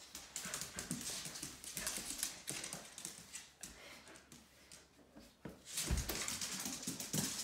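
A dog's claws clicking and skittering on a hard hallway floor as it runs about, mixed with a person's footsteps. There is a heavier thump a little before six seconds in.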